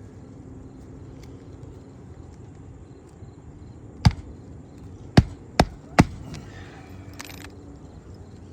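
Hammer striking four sharp blows under a lifted roof shingle, about halfway through, the last three in quick succession.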